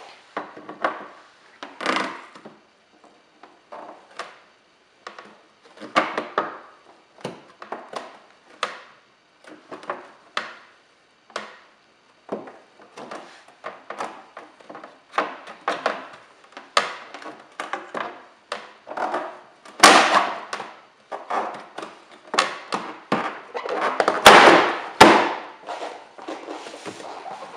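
Irregular knocks and thumps of hands pressing and tapping an aftermarket side skirt panel into place along a car's rocker, seating it on double-sided tape. They come thicker and louder after about twenty seconds, with the loudest knocks about twenty and twenty-five seconds in.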